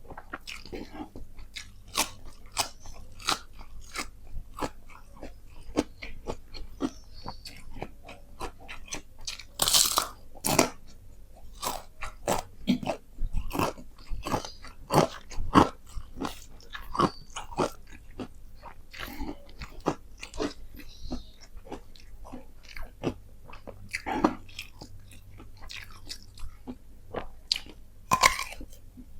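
Close-up chewing with many sharp, irregular crunches: a person biting into and chewing crispy fried chicken with rice.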